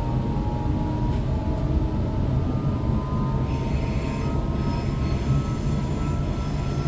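Waratah electric multiple unit running between stations, heard from inside the carriage: a steady rumble of wheels on track with a thin traction-motor whine. Higher whining tones join about halfway through.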